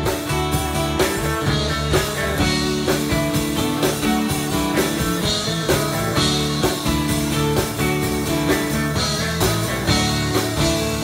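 Live rock band playing an instrumental passage: drums keeping a steady beat under electric guitars, bass and keyboard.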